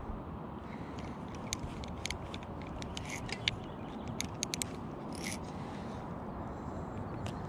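Small spinning reel being worked while playing a hooked trout: a steady low rumble with a run of sharp clicks from about a second and a half in to nearly five seconds.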